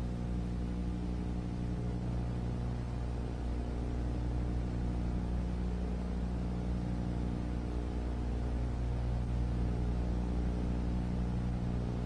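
Steady low droning hum made of several held low tones over a faint hiss.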